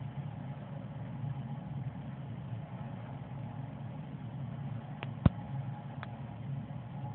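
A steady low mechanical hum, with a sharp click about five seconds in and two fainter ticks just before and after it.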